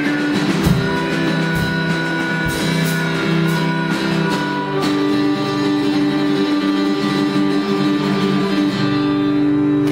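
Live instrumental blues shuffle: harmonica played through a vocal microphone over guitar, with a few sharp hits in the first half, then a long held closing chord.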